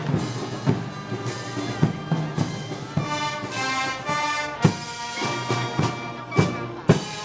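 Brass band with drums playing festival march music: held brass chords over a steady drum beat of about one stroke every 0.6 s.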